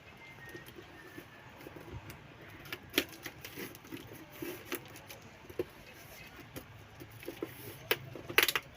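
Garment steamer packaging being handled and opened by hand: scattered light taps, clicks and rustles of cardboard and plastic, with a sharp knock about three seconds in and a quick burst of crackling near the end.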